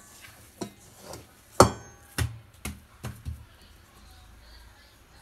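Stainless steel mixing bowl knocking against a granite countertop as bread dough is turned out of it: a series of sharp knocks, the loudest about a second and a half in with a brief metallic ring.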